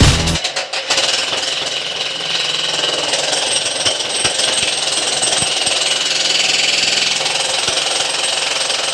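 A power tool at a building site, running steadily with a few knocks.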